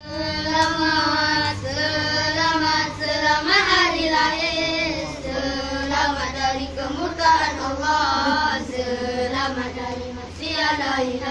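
A group of children singing together in unison, a Malay-language birthday song.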